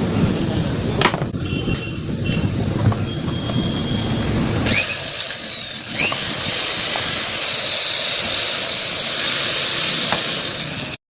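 A power tool's electric motor running with a dense low rumble. About halfway through it gives way abruptly to high sweeping tones and a held high tone, which cut off suddenly at the end.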